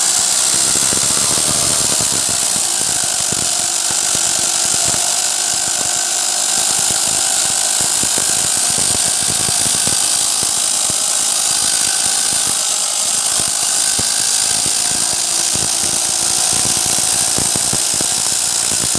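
Homemade electric wood saw driven by a washing machine motor, running steadily with a high whine and rapid, irregular crackling knocks.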